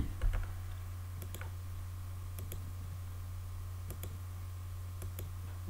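A few scattered computer mouse clicks as line points are picked in a CAD program, over a steady low hum.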